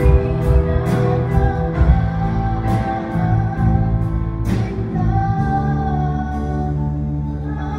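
Live worship music: female voices singing with a band. Drum and cymbal strikes sound through the first half, then the band settles into a held chord.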